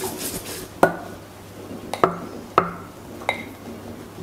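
Wire whisk beating thin kefir batter in a stainless steel pot for under a second, then four sharp, ringing clinks of utensils against the steel pot while flour is tipped in from a glass bowl.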